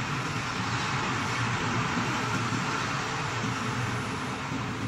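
Steady whir and low hum of running workshop equipment, holding an even level throughout.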